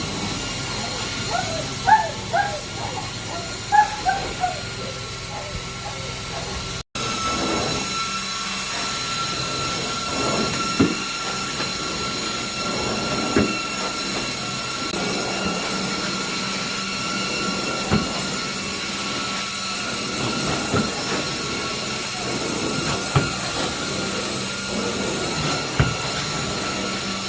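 Carpet-cleaning machine running with a steady hiss and a constant high whine, with a few short squeaky chirps in the first seconds and occasional knocks.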